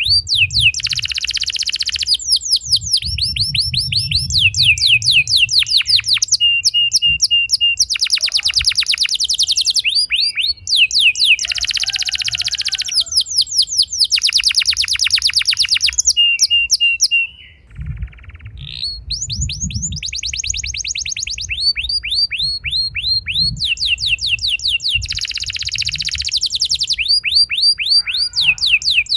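Domestic canary singing a long song of rolls and trills: one run of quick repeated notes after another, each run at its own pitch and speed, with one brief pause a little past the middle.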